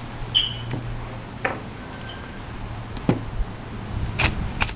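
Scattered metal clinks and knocks of tools and motor parts being handled on a wooden floor: a ringing clink about half a second in, a few duller knocks, and two sharper clicks near the end as an impact driver's bit is fitted to the motor's end-cap bolt.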